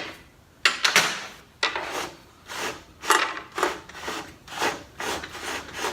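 A run of short scraping and rubbing strokes, about two a second, from wood and tools being handled.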